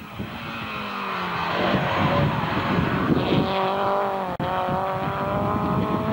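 Racing car engine at hard throttle, getting louder as it nears: the revs fall over the first couple of seconds, then climb steadily as the car accelerates up the hill. The sound cuts out for an instant just past four seconds in.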